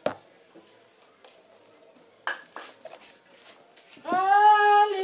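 A few sharp knocks as cardboard drink cartons are handled and set down on a table. About four seconds in comes a loud, long call held on one steady pitch, from a person or an animal.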